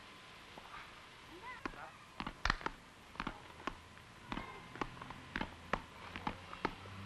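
Footsteps on a hard court floor: sharp, irregular steps at roughly two a second, starting about a second and a half in, with a few rubber-sole squeaks at the start. A faint steady hum lies underneath.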